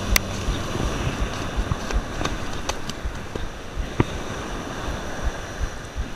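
Ocean surf washing and wind buffeting the microphone, a steady rushing noise, with a few sharp clicks, the loudest about four seconds in.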